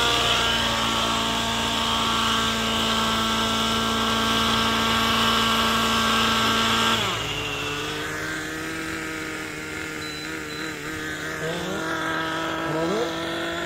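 Nitro glow engines and rotors of 700-size RC helicopters running at high speed, a steady buzzing whine. About seven seconds in, the note drops sharply and runs quieter.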